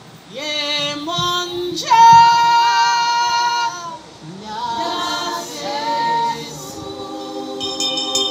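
A woman's voice singing unaccompanied, without words, in long held notes that slide up into each phrase. A high ringing, jingling sound joins near the end.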